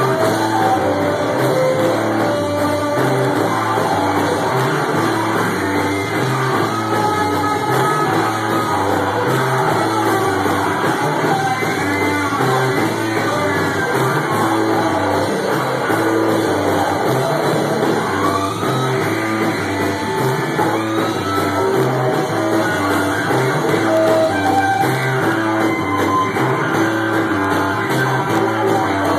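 Rock band playing live and loud: electric guitar and drum kit, with sung vocals.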